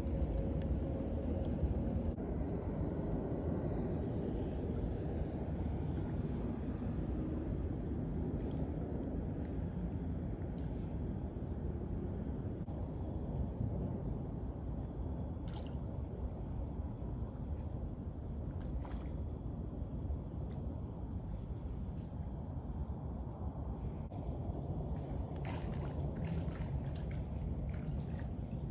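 Insects calling in a steady, rapidly pulsing high trill over a louder low rumble, with a few faint ticks.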